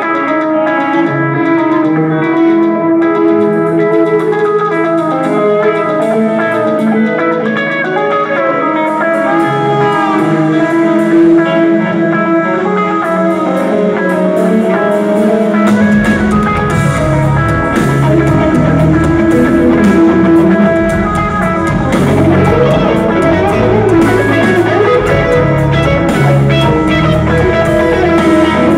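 A live band plays instrumental progressive metal, heard from the audience: intricate electric guitar lines over drums and cymbals. About halfway through, a heavy low end of bass and kick drum comes in.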